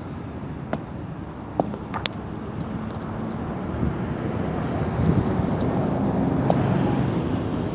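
Road traffic passing, swelling to a peak a few seconds in, with a few sharp clinks of a metal scoop against an iron wok of roasting salt.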